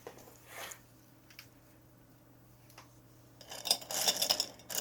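Light clinking and rattling of small hard objects handled on a table, faint at first, with a quick cluster of clicks near the end.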